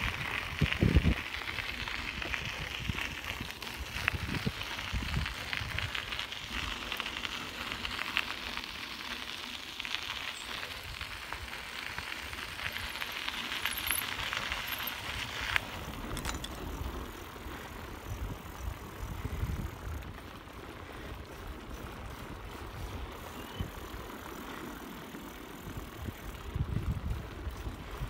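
Bicycle tyres crunching and rattling over a gravel trail, with low rumbles mixed in. A little past halfway the crunch stops abruptly and gives way to a quieter rolling as the bike moves onto a wooden boardwalk.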